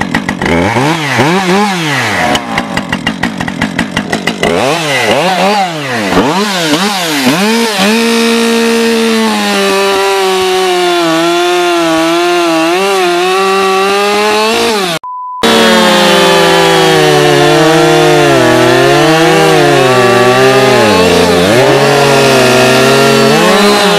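Husqvarna 550 XP Mark II two-stroke chainsaw just started: revved up and down in repeated throttle blips, then held at high revs with the pitch wavering as the chain cuts through a log. About fifteen seconds in, a brief beep cuts in, then the chainsaw goes on cutting.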